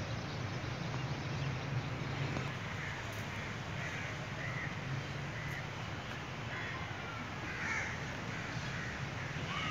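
Birds calling outdoors: several short, harsh calls in the second half, over a steady low rumble.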